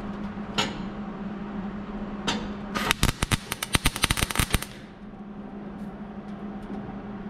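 A short burst of arc welding on thin sheet steel, a rapid irregular crackle lasting under two seconds about three seconds in: an attempt at a tack weld joining a new floorpan edge to the transmission tunnel.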